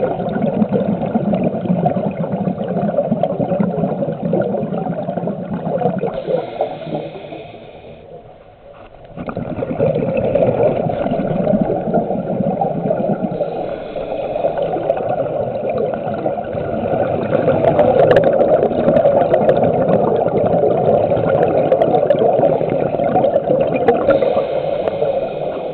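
Underwater recording: muffled rushing and bubbling of water around the camera as it moves through the water with a swimmer. The noise dies away for a moment about eight seconds in, then picks up again.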